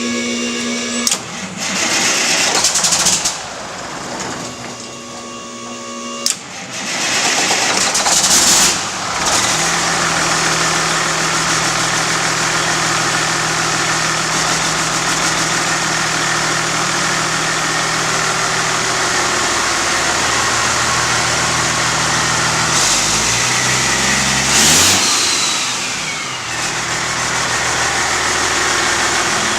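14-liter Detroit Diesel inline-six in a race semi truck being cranked, with a first try about a second in and a second one around six seconds in. It catches on the second try and settles into a steady idle. Near the end the engine speed dips and then rises again briefly.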